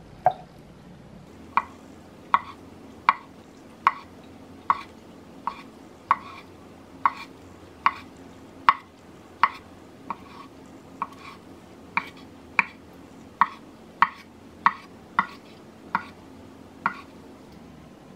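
Vegetable knife chopping soft boiled sweet potatoes into sticks on a wooden cutting board: about twenty sharp knocks of the blade meeting the board, a little under a second apart, stopping shortly before the end.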